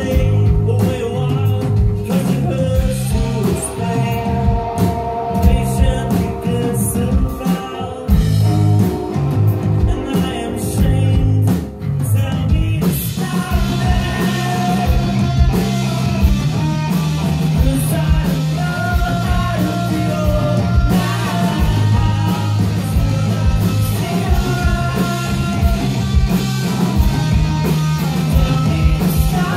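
Live rock band playing electric guitars, bass and drums with sung vocals, heard from among the audience in a club. About twelve seconds in there is a brief dip, then the band plays fuller and more evenly.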